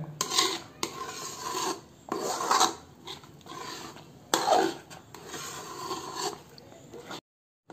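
Perforated metal ladle stirring and scraping thick semolina halwa around a metal kadhai, in a string of irregular scraping strokes. The halwa has cooked down to its finished, thick consistency.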